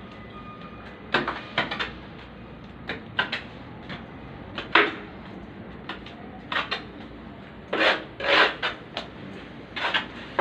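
A trowel scraping and knocking as tile adhesive is scooped from a bucket and spread on the back of a ceramic wall tile. The short scrapes and clinks come at irregular intervals, with two longer scrapes about eight seconds in.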